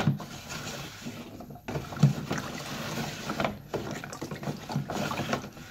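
Flat wooden stick stirring tej (honey wine with gesho) in a plastic bucket: liquid sloshing and swishing as freshly added honey is mixed in, with a louder thump about two seconds in.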